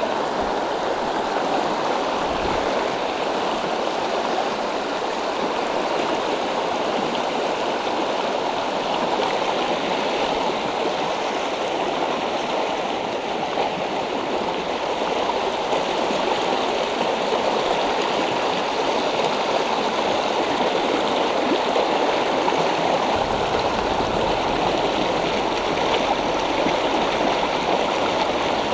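Fast, shallow river riffle rushing and splashing over rocks close by, a steady rush of whitewater. A low rumble joins in near the end.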